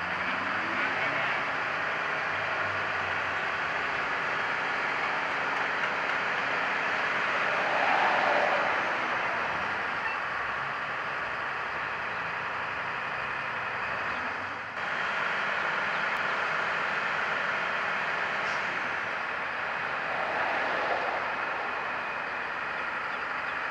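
Steady drone of running diesel engines from heavy equipment, with a short dip about two-thirds through.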